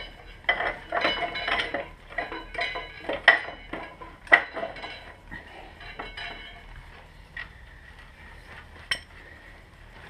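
Hand tools and metal front-wheel parts of a motorcycle clinking and clanking during a front wheel change. There is a quick run of clinks early, two loud sharp clanks about three and four seconds in, then scattered lighter clinks.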